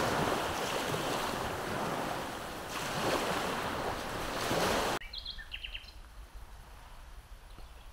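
Sea waves washing in on the shore with wind on the microphone, swelling twice. About five seconds in it cuts off abruptly to a quiet background with a few short bird chirps.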